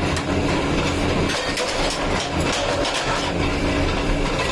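Flywheel-driven mechanical power press running steadily with a constant motor hum, with a few knocks as hot steel is forged under it.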